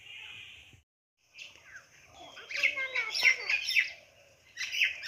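Small birds chirping: a flurry of quick, sharp, high calls that falls off, then a second flurry near the end. A brief gap of silence comes about a second in.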